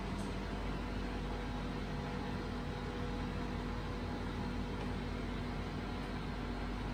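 Steady mechanical hum and hiss, with a few faint constant tones and nothing else standing out.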